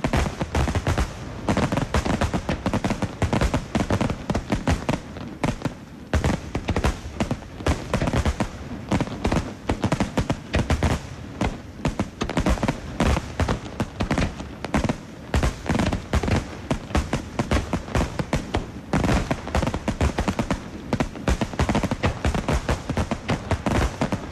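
Starmine fireworks display heard from afar: a rapid, continuous barrage of shell bursts, dense booms and crackles with only brief lulls.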